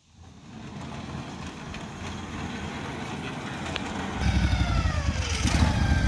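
Norwood portable bandsaw mill's gas engine starting up and running, rising in level over the first second, then louder about four seconds in as it is throttled up. Near the end, higher whining tones slide down in pitch over it.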